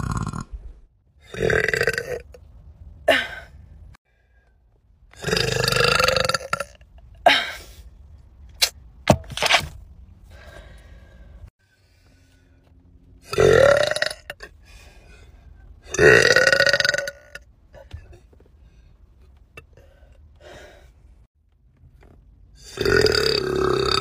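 A woman's loud, drawn-out burps, about five of them a few seconds apart, with a few shorter burps and small mouth clicks between.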